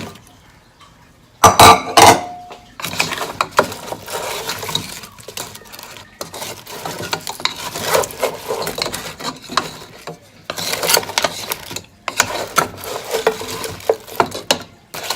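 Spoon scraping and clinking against a bowl as baked chicken is stirred into a butter-garlic-parmesan glaze, with a loud clatter about a second and a half in. The stirring goes on in irregular strokes with a couple of short pauses, the bowl a little too small for easy mixing.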